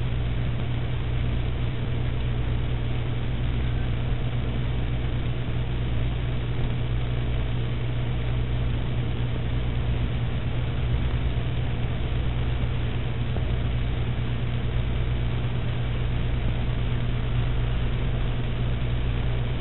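Steady low hum under a constant hiss, unchanging throughout, with no impacts or other events.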